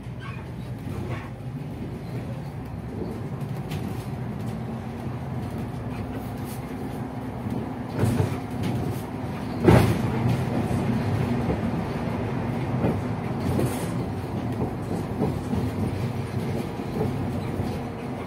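City bus running on the road, its engine and rolling noise a steady low rumble that grows louder over the first few seconds. Two sharp knocks come about eight and ten seconds in, the second the loudest.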